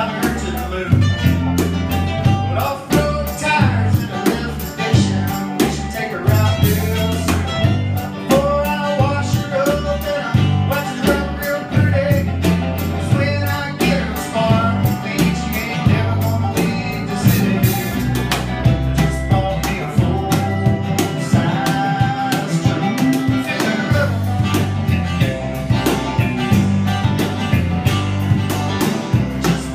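Live rock band playing: electric guitar, bass guitar and drum kit, with a man singing over them.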